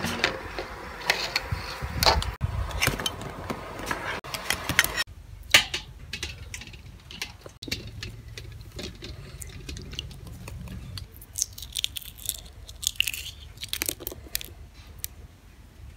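Boiled eggs clicking and knocking against each other and the metal pan as they are handled in water, then the eggshells cracking and crackling as a boiled egg is peeled by hand near the end.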